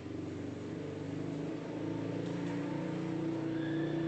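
A motor vehicle's engine running steadily, slowly growing louder.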